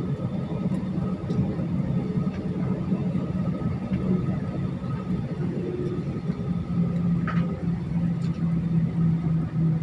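Airliner cabin noise on the ground: the jet engines running with a steady low drone, and a faint thin whine above it.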